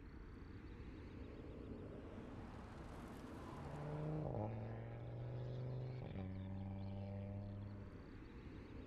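Audi A3 clubsport quattro concept's turbocharged five-cylinder engine running faintly as the car drives, over a steady road hiss. Its note comes up a few seconds in and changes pitch in steps, about four and six seconds in.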